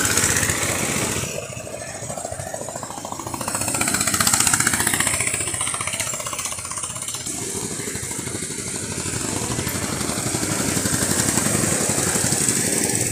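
Go-kart engines running as karts drive past on the track. The sound swells and fades as each one goes by and is loudest about four seconds in.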